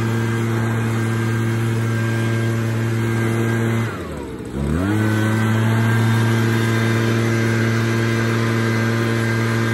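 Handheld leaf blower running at a steady pitch. About four seconds in it briefly winds down and spins back up to full speed, then starts to wind down again at the very end.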